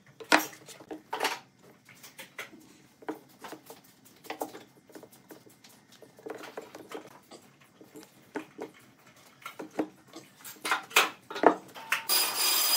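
Wooden spreading stick tapping and scraping against wooden blocks as a glue paste is worked onto them: scattered short clicks and knocks. A loud steady rasping noise starts near the end.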